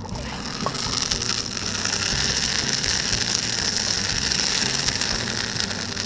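Molten iron pouring from the tap spout of a home-built cupola furnace into a ladle: a steady, dense crackling hiss that starts suddenly.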